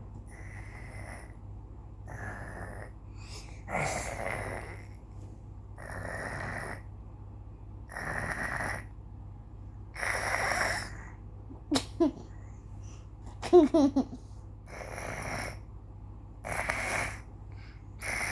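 Snoring: a rough, rasping snore on each breath, repeated roughly every two seconds. It breaks off in the middle for two short squeaky sounds, then resumes.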